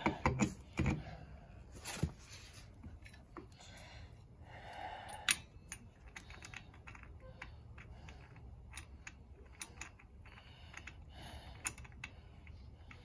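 Scattered light metallic clicks and taps of a Honda Helix scooter's clutch-shoe assembly and spring-loaded driven pulley being pressed down and turned by hand, to compress the spring and start the retaining nut. A few sharper clicks stand out, the loudest about five seconds in.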